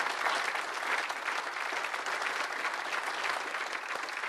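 Audience applauding, many hands clapping steadily at once.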